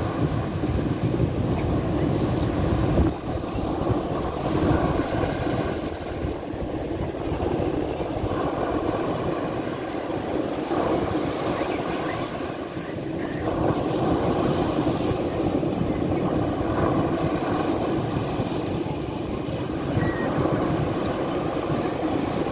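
Mediterranean surf: small waves breaking and washing up a shell-strewn sand beach in a continuous rush that swells and eases every few seconds. Wind buffets the phone's microphone with a low rumble underneath.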